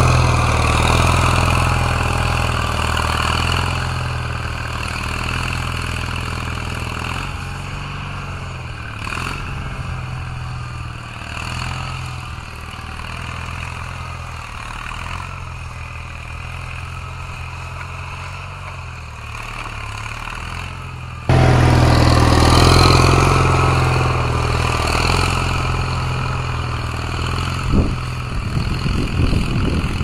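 Air-cooled Onan NHC flathead flat-twin engine of an EFI-converted Gehl 2500 skid steer running steadily, growing fainter as the machine moves away, then suddenly louder again about two-thirds of the way through. A few sharp knocks come near the end.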